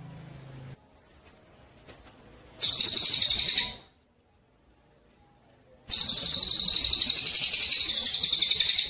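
A songbird singing two loud, rapid, high-pitched trills. The first lasts about a second and the second about three seconds, starting about six seconds in. Faint thin whistles sound between them.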